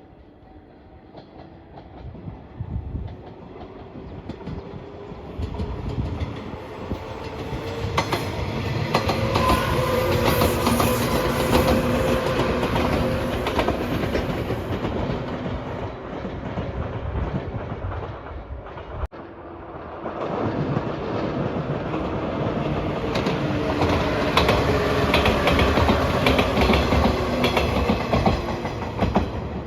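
A train passing close by at a level crossing, with wheels clattering on the rails; the sound swells up to a loud peak and eases off. About two-thirds of the way through it cuts off abruptly, and a second train pass rises straight after.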